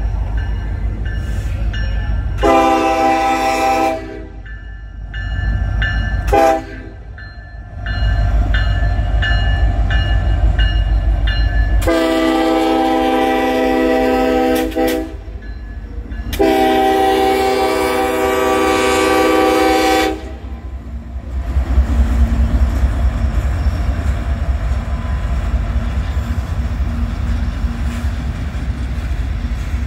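Union Pacific freight train's diesel locomotive horn sounding four blasts on approach to a road crossing: a long one, a short one, then two long ones. Under the horn is the rumble of the approaching locomotives, which grows louder after about 21 s as the diesels and the first cars roll past close by.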